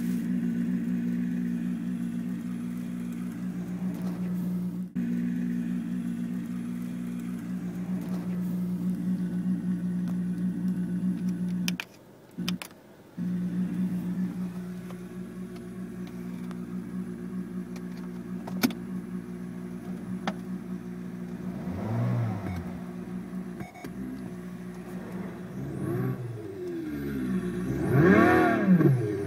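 Sound Racer V12 gadget playing a synthetic Ferrari V12 engine sound through a car's stereo. It idles steadily, drops out briefly about twelve seconds in, then from about 22 seconds rises and falls in pitch as the throttle is blipped, loudest near the end.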